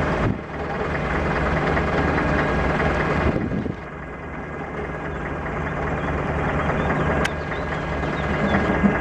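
Heavy truck diesel engine running steadily with an even low throb, dipping in level briefly twice, with a single sharp click about seven seconds in.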